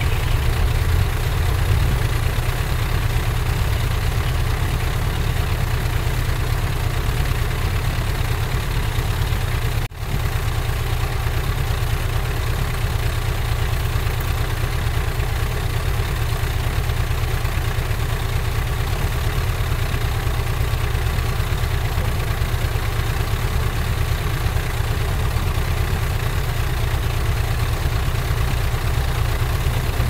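Heavy diesel engine of earthmoving machinery running steadily with a low rumble, with a brief dropout about ten seconds in.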